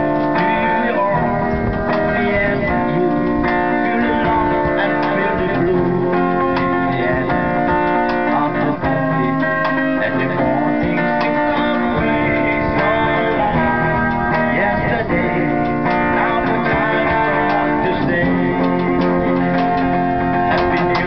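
Guitar strummed and plucked, playing a song.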